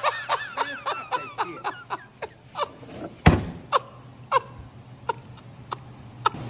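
A person laughing in quick bursts that thin out into scattered chuckles, with one sharp knock about three seconds in.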